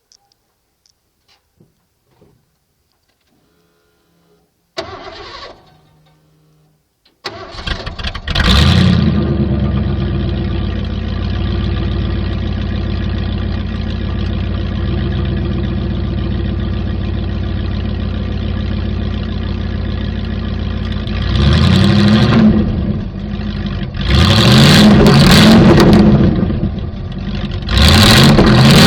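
1989 Ford F-150 with a straight-piped exhaust, resonator removed and a loose, unfastened extension pipe ending under the bed, started up: the engine catches about seven seconds in with a flare of revs and settles into a loud, steady idle. Near the end it is revved three times, each a quick rise in pitch.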